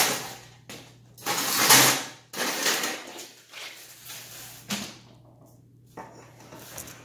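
Handling of bicycle fork parts: a sharp knock, then about a second of loud rasping, scraping noise, a shorter scrape, and a few light clicks.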